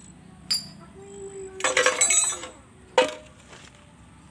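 Hard metal objects clinking and rattling: a brief jangling clatter lasting about a second, then one sharp ringing clink about three seconds in.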